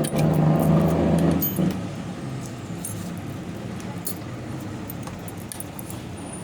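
A steady low hum for about the first second and a half, then light metallic clinks and clicks as chainsaw parts are handled during assembly.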